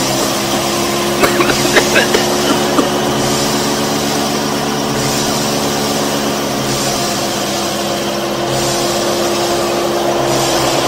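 The small motor of a home-built mini tractor and thresher rig running steadily with a constant hum. A few sharp clicks and rattles come through in the first few seconds, and a higher hiss rises and falls every couple of seconds.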